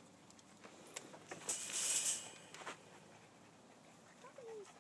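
Faint rustling and light clatter of dog toys in a plastic basket being jostled, loudest for about half a second a little past a second in, with a brief high squeak near the end.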